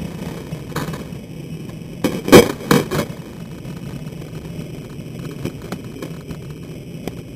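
Skateboard wheels rolling on street asphalt with a steady low rumble, broken about two seconds in by a quick run of four loud wooden clacks as the board hits the pavement.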